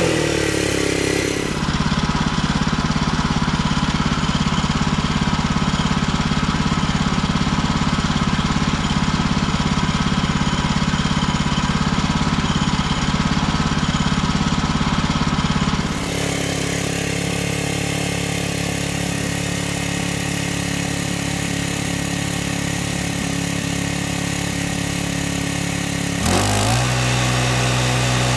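Woodland Mills HM130 Max portable band sawmill running, its engine driving a Wood-Mizer SilverTip blade through a red oak log. The engine's pitch falls in the first second or so, the sound changes and drops slightly about sixteen seconds in, and the engine speeds up again near the end.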